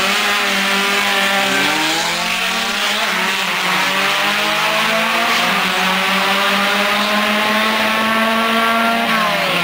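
Drag-racing cars' engines accelerating hard down the strip, the notes climbing in pitch and dropping back at each upshift, several times over. The engine notes fall away near the end.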